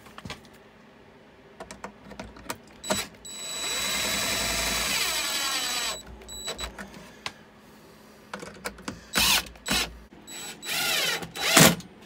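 Cordless drill/driver driving screws to fasten a push-button drawer latch. There is one run of about three seconds, a few small clicks, and then several shorter bursts in the last few seconds.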